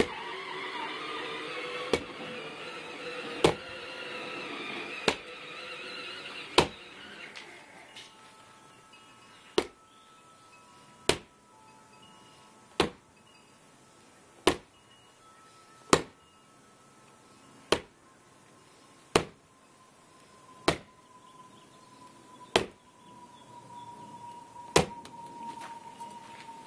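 A wine bottle set in a shoe being banged heel-first against a concrete foundation wall to work the cork out: a sharp knock every second and a half to two seconds, about fourteen in all, with a longer gap after the first four.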